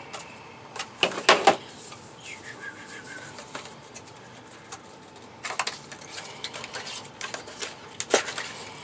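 A small cardboard box and its inserts being handled: the lid slid off and the inner pieces taken out. Several sharp taps and knocks, the loudest about a second and a half in, with light scraping and rubbing between them.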